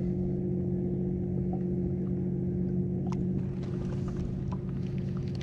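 A steady low mechanical hum from the boat, holding one pitch throughout, with a few light clicks and knocks about three seconds in.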